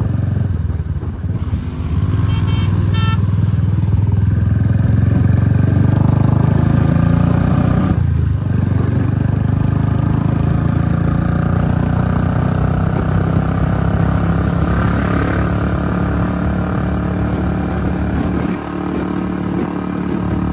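Motorcycle engine running steadily while riding, easing off briefly about eight seconds in.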